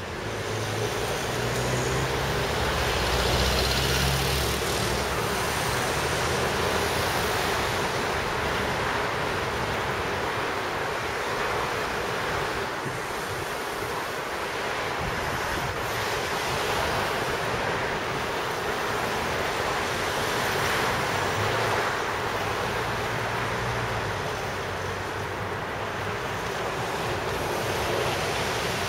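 Steady rushing outdoor noise of city traffic, with gusts of wind rumbling on the microphone a few seconds in and again past the middle.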